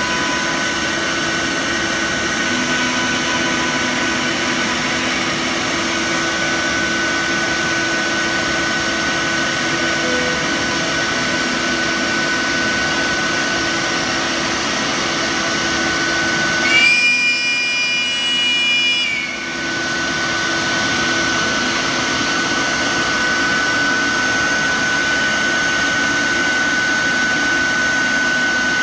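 CNC router spindle running with a steady whine as its bit cuts through a SIP panel, over the rush of the dust extraction. About 17 seconds in, the cutting noise drops away for about two seconds while higher whining tones sound.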